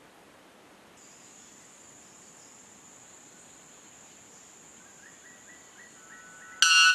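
A male white bellbird gives a sudden, very loud, ringing call near the end, rich in overtones. Before it there is a steady high-pitched hum in the background, with a few faint short notes just before the call.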